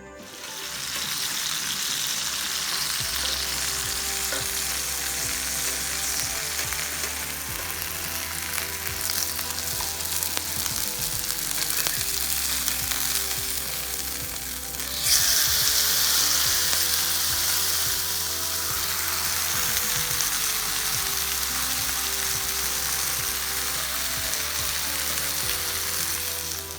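Chicken thigh sizzling as it fries in oil in a frying pan, a steady dense crackle. The sizzle turns suddenly louder and brighter about halfway through.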